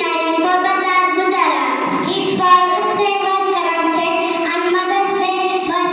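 A girl singing through a microphone and PA, holding long notes that slide from one pitch to the next.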